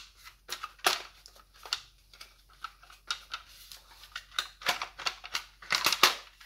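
Irregular clicks and knocks of an M24 gel blaster rifle being handled as its action is fitted back into the stock, with a cluster of louder knocks near the end.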